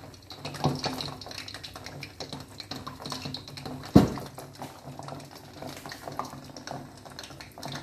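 Kajoor dough pieces sizzling in hot oil in a karahi, with a steady fine crackle of bubbling. There is one sharp knock about four seconds in.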